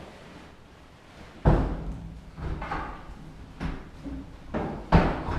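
Metal bed frame with wire-mesh panels being lowered and settled onto the bed base: a heavy thud about a second and a half in, then a string of lighter knocks and clunks, and another loud thud near the end.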